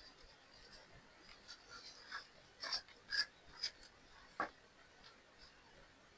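Small plastic items being handled, likely an acrylic powder jar and its packaging: a quick run of short clicks and scratchy rustles in the middle, ending in one sharper click.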